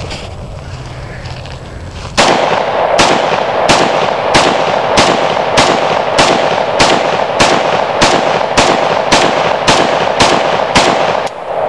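AK-47 rifle firing a steady string of about sixteen single shots, each followed by a ringing tail, starting about two seconds in at a pace of roughly one and a half shots a second.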